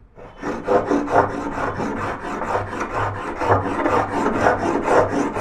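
Miniature brass hand plane pushed back and forth along the edge of a wooden board in quick short strokes, about two to three a second, each stroke a dry scrape of the blade shaving the wood. The blade is still unsharpened, as it came from the maker.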